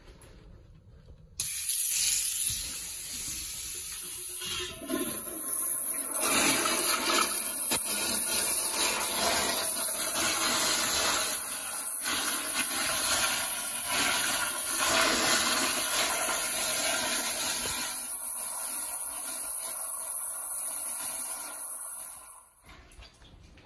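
Commercial flushometer toilet flushing: loud rushing water with a high hissing valve, starting suddenly and fading out near the end.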